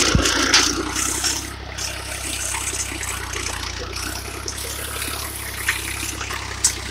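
A tractor engine runs with a steady low hum while a tine cultivator drags through dry, cloddy soil, giving a continuous crunching, rushing hiss of earth and clods scraping past the tines. There is a thump at the very start.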